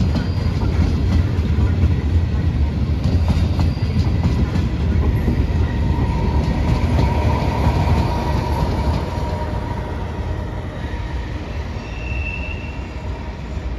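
Regional passenger train pulling into the station, a heavy rumble of wheels on rail. A thin squeal rises from the wheels or brakes midway, and the rumble dies down over the last few seconds as the train slows.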